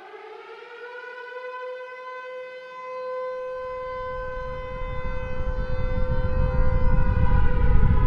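Civil defense siren finishing its wind-up and holding a steady wail. A deep rumble comes in about halfway through and grows steadily louder underneath it: the build-up of a nuclear explosion sound effect.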